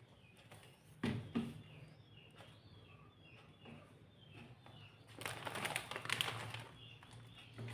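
Small birds chirping repeatedly in short falling notes, over a steady low hum. Two sharp knocks come about a second in, and a louder rustling burst comes about five seconds in.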